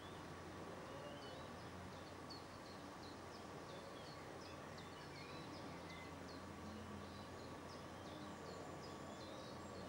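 Birds chirping: a quick run of short, thin, high chirps, a few a second, over a steady hiss and a low electrical hum.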